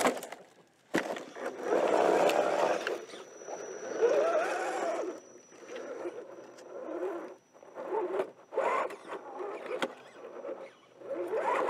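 RC4WD Trail Finder 2 scale rock crawler, a radio-controlled model, working over sandstone ledges. Its electric drive whines up and down in short spurts, mixed with tyres and chassis scraping and clicking on the rock.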